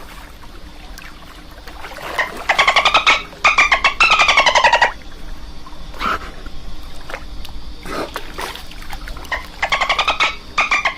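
Dolphin burst-pulse calls: buzzy, rapid-pulsed chattering in bouts of about a second, each falling slightly in pitch, with a few short whistle-like sweeps between the bouts.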